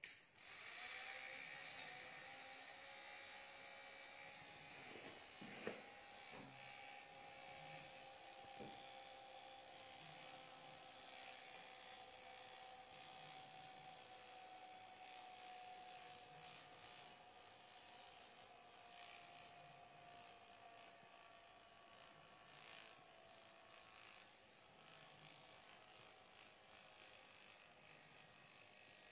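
Small battery-powered DC motor and fan of a homemade toy vacuum cleaner switched on with a click, then running with a faint, steady whine whose pitch sinks slowly. A couple of light clicks come a few seconds in.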